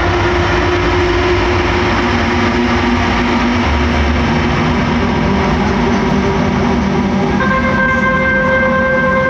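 Electric guitar run through a large board of effects pedals, playing a loud, dense drone of noise with several sustained tones layered in. About seven seconds in, a new set of higher held tones comes in over the drone.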